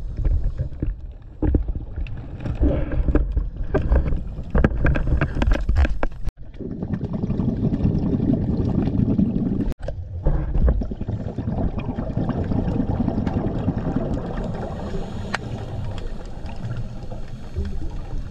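Muffled underwater noise picked up through a GoPro's housing on a scuba dive: crackling and gurgling of water and the diver's exhaled bubbles. A denser low rush comes in about a third of the way through. The sound cuts out suddenly twice, about six and ten seconds in.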